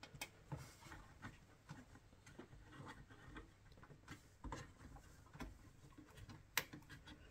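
Faint clicks and light scraping of a CPU heatsink's plastic push-pin fasteners being pressed down into the motherboard to lock the cooler in place, with a sharper click about six and a half seconds in.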